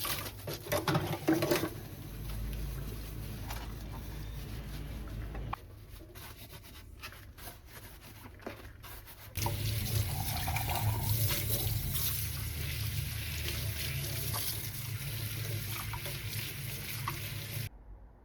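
Water running from a tap into a sink, with a few clinks in the first seconds; the flow drops quieter for a few seconds midway, then runs louder before cutting off near the end.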